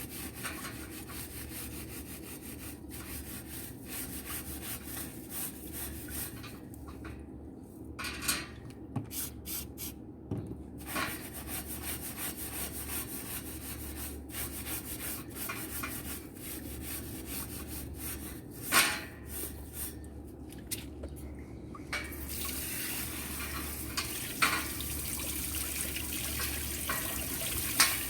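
Scrubbing of greasy barbecue tools that have been sprayed with degreaser, in irregular strokes with a few sharp knocks. A little over two-thirds of the way through, a steady rush of running tap water takes over as they are rinsed.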